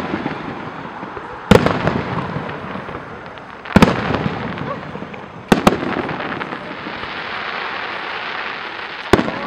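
Aerial fireworks shells bursting: four sharp bangs, the third a quick double, with a crackling hiss from the burning stars between them.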